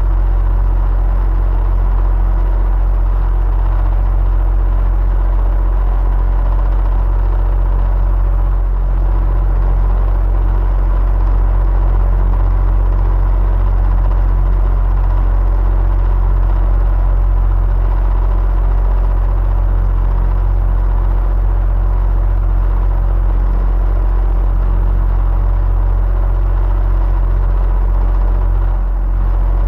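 Electric fan running steadily: a deep, unchanging hum under a steady whir, with a few faint steady tones.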